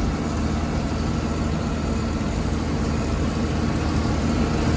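Farm tractor engine running at a steady speed, an even low hum that does not change.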